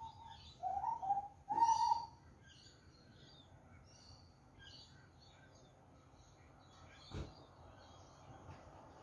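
Grey butcherbird singing a short phrase of mellow, piping notes in the first two seconds, followed by faint high chirps. A single sharp knock about seven seconds in.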